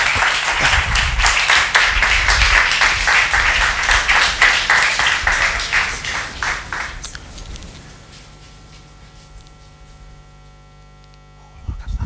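Applause, many hands clapping, dying away after about seven seconds, leaving a faint steady mains hum and a few low thumps near the end.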